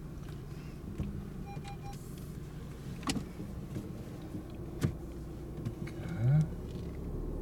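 Car engine running at low speed, heard from inside the cabin while the car turns around. Three short beeps come about a second and a half in, two sharp clicks follow, and a brief rising whine near the end is the loudest moment.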